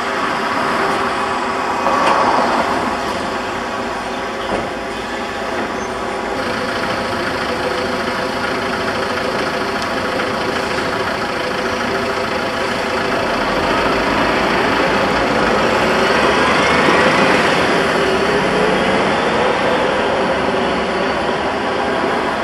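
Electric tram running, a steady mechanical rumble and hum; late on, the traction motors give a whine that rises in pitch and then falls away.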